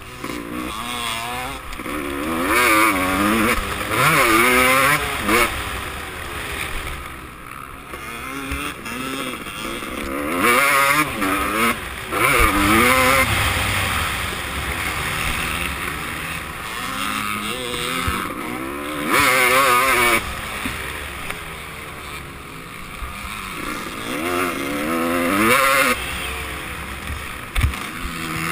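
Motocross bike engine at racing pace, revving up hard in repeated surges with the pitch climbing through each gear, then dropping back as the throttle is rolled off for corners.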